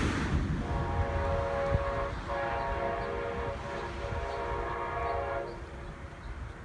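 Locomotive air horn of an approaching, still out-of-sight train, sounding a chord of several tones: a shorter blast, then a longer one. Wind rumbles on the microphone underneath.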